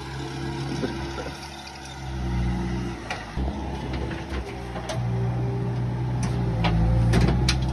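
Terex skid-steer loader's engine running under load as it lifts a bucket of dirt and stump roots, with a steady hum and a few sharp knocks in the second half.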